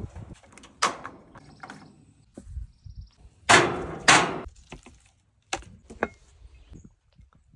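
Hard knocks and scrapes of grilling prep. The loudest are two harsh scrapes about three and a half and four seconds in, as a Himalayan salt block is set down and slid across metal grill grates. A few sharp clicks and clacks of handling follow near the end.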